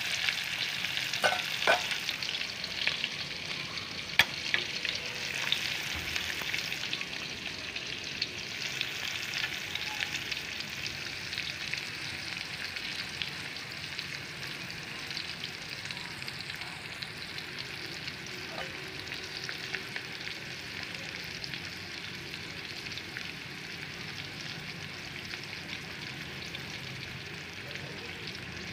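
Slices of pork liver sizzling in hot oil in a pan, a steady crackling hiss with a few sharp spatter pops in the first few seconds. The sizzle slowly quietens, the liver done and the fire just turned off.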